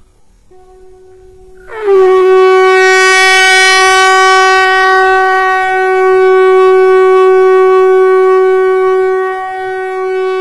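Shankh (conch shell trumpet) blown on one note: a soft tone that jumps about two seconds in to a loud, full blast. The pitch dips briefly as the blast comes in, then it is held steady.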